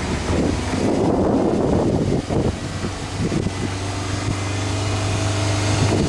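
Subaru Impreza WRX STI hatchback's turbocharged flat-four (boxer) engine idling steadily, heard at its quad-tip exhaust.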